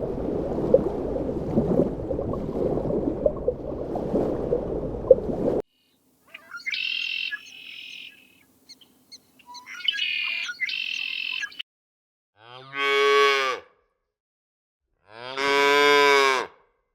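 Dense rustling noise for about five seconds, then two short spells of high chirping calls, then two loud drawn-out livestock calls of about a second each, near the end.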